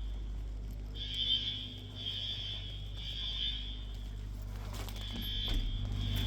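Building fire alarm sounding: a high electronic tone in pulses of about a second, three in a row, a pause, then sounding again over a steady low hum. The alarm was set off by what the fire crew take to be a broken, frozen water main.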